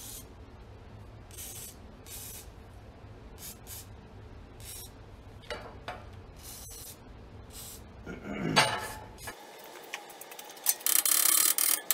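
Aerosol can of spray lubricant hissing in a series of short squirts as it soaks the cylinder head studs, loosening them before the head is lifted off. Near the end a louder, harsher noise starts.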